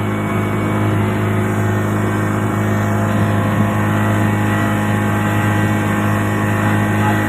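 Boat engine running at a steady speed, a constant low drone with no change in pitch.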